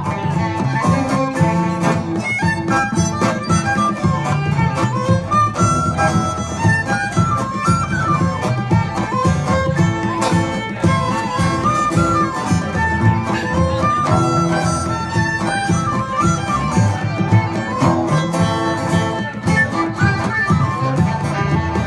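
Live folk band playing a lively instrumental tune: a fiddle carries a quick melody over strummed acoustic guitars, upright bass and a steady bodhrán beat.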